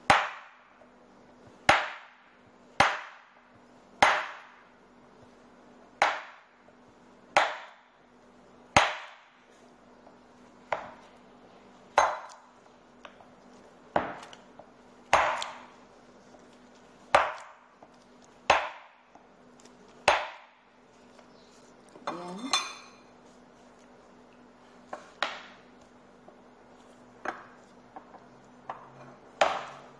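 Kitchen knife chopping chocolate bars on a wooden cutting board: sharp knocks of the blade striking the board, about one every second or two, with a brief rattle a little past the twenty-second mark.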